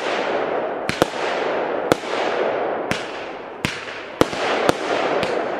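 Aerial fireworks going off in quick succession: sharp bangs, about one a second at first and then faster, over a steady hiss and crackle from the rising shots and glittering bursts.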